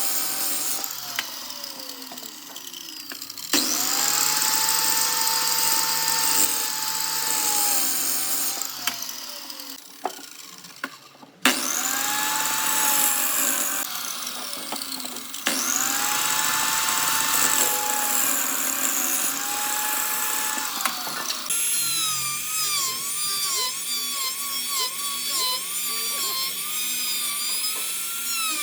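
Electric power tools working wood. A motor whine starts and stops sharply in several runs, and in the last several seconds a tool's pitch wavers up and down.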